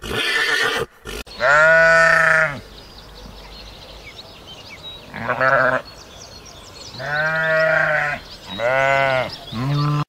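Sheep bleating: five pitched, wavering bleats, the first and loudest about a second in and the rest in the second half. A brief rough noise comes before them at the start.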